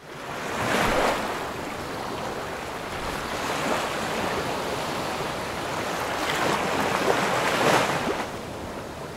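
Ocean surf: waves breaking and washing in a steady rushing hiss, with two louder swells, about a second in and again near the end.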